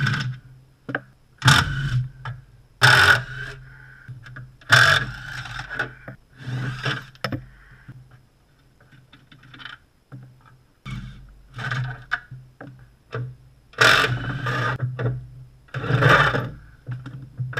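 Cordless impact wrench running in short bursts of about a second each, undoing the bolts of a BMW E46's underbody reinforcement plate. The bursts are repeated several times, with a quieter pause partway through, and there is scraping of metal as the plate is worked loose.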